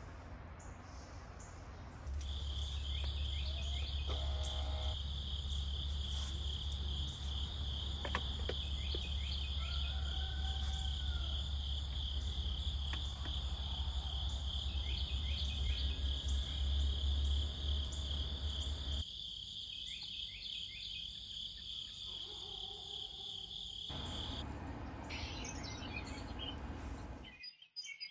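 An evening chorus of insects, a steady high trill, over a low wind rumble on the microphone, with a brief bird call near the middle. The insect trill starts suddenly about two seconds in and cuts off abruptly a few seconds before the end.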